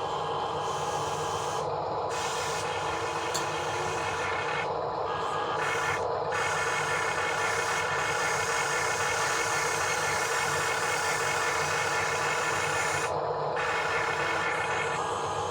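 Steady mechanical whirring and rubbing, like a small motor driving gears. It runs without a break, and its hissy top end cuts out briefly a few times.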